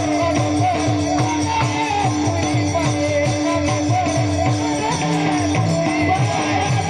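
Devotional kirtan music: a wavering sung melody over a held drone tone, with a steady drum beat and jingling hand percussion.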